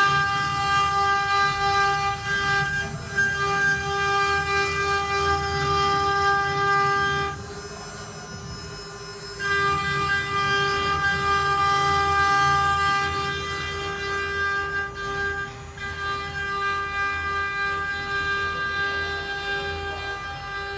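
Stone CNC router spindle running with a steady high whine as its bit engraves a small stone workpiece. The whine drops out for about two seconds a little before the middle, then resumes, and is slightly fainter in the last few seconds.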